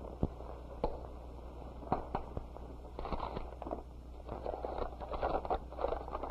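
Kitchen utensils handling cake flour: a few light clicks, then scraping and rustling from about three seconds in, over the steady low hum of an old film soundtrack.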